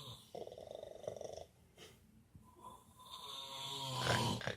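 A sleeper snoring: a rattling snore about half a second in lasts about a second, then a second snore builds from a little before the midpoint and grows louder toward the end.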